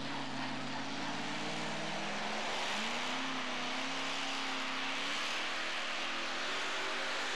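Supercharged engine of a two-wheel-drive pulling truck running hooked to the sled, its pitch rising about two and a half seconds in and climbing again near the end as it revs.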